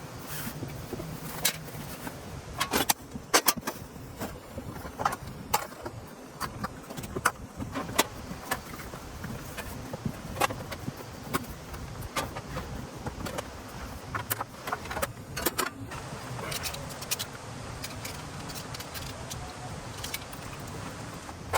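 Steady hiss of heavy rain with irregular sharp clicks and knocks scattered throughout, a few of them loud, like gear or tarp being handled or big drops striking.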